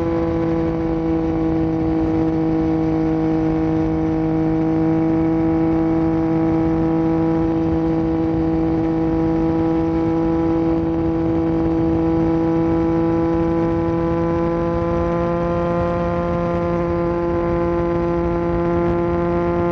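2022 Yamaha Tracer 9 GT's inline three-cylinder engine breathing through an unbaffled Akrapovic full exhaust, held at steady revs on the move. Its pitch sags slightly, then climbs back near the end.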